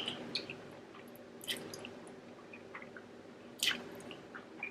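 Wet chewing and lip smacks of someone eating, with a few short sharp clicks, the loudest about three and a half seconds in.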